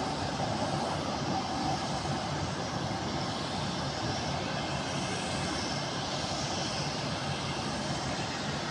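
Steady jet-engine noise from airliners on the apron, an even rumble and hiss that does not rise or fall.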